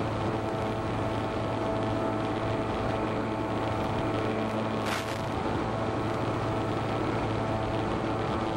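Electric motor and propeller of a radio-controlled model plane running at a steady cruise throttle: an even hum over a hiss of noise. A brief crackle comes about five seconds in.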